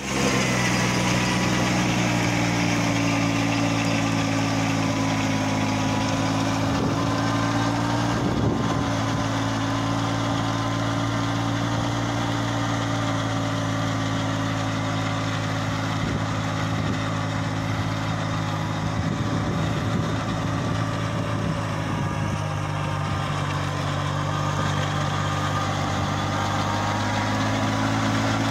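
Compact tractor's engine running steadily at an even speed while it drives a rear-mounted mini rotavator (rotary tiller) tilling the soil.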